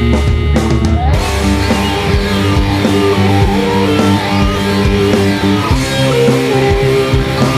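Rock band music: guitar, bass and drums playing an instrumental passage, with the full band coming in about a second in.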